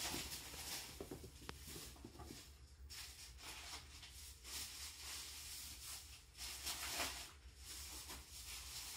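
Quiet room with a low steady hum and several faint, soft scuffs and taps from a kitten scampering and pouncing on carpet tiles.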